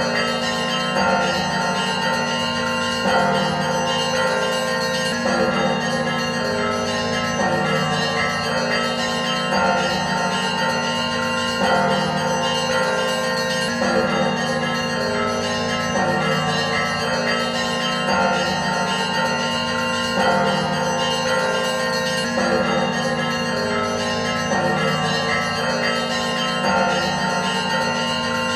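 Church bells ringing, many bells sounding together and ringing on, with a fresh round of strikes about every two seconds.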